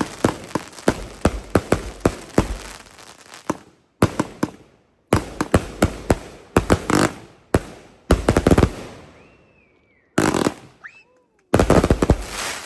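Consumer fireworks going off in a rapid run of sharp bangs, several a second. The bangs stop and start a few times.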